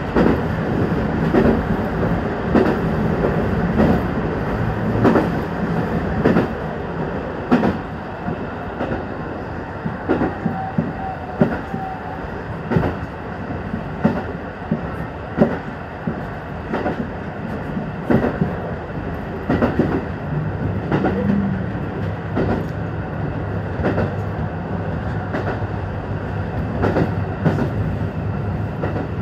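KiHa 150 diesel railcar running, heard from inside the driver's cab: the diesel engine runs steadily under sharp wheel clicks over rail joints that come at irregular intervals. The engine note changes about twenty seconds in.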